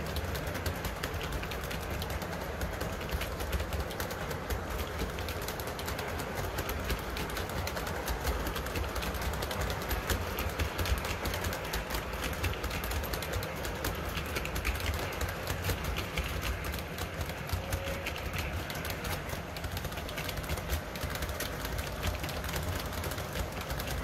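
O gauge three-rail model freight train rolling past, a long string of hopper cars with their wheels clicking rapidly over the rail joints above a steady low rumble.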